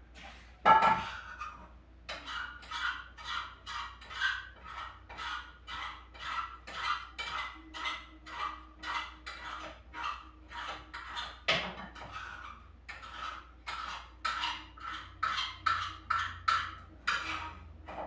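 Rhythmic scraping strokes of kitchen work, about two a second, with dishes knocking loudly about a second in and again about two-thirds of the way through.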